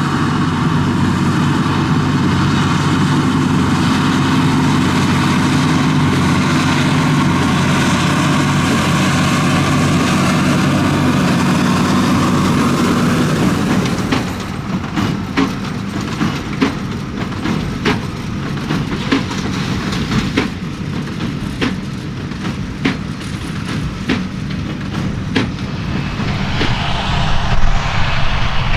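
John Deere 7310R tractor running steadily under load while pulling a New Holland BigBaler 1290 Plus big square baler. About halfway through, the sound changes to a duller machine noise with a series of sharp, irregular knocks.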